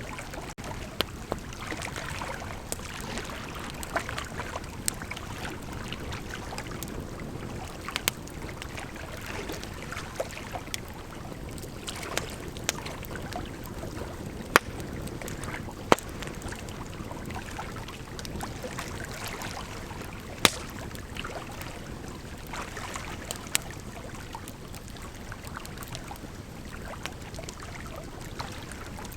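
Bonfire burning with a steady rushing hiss, crackling, and sharp pops scattered throughout, a few of them much louder than the rest.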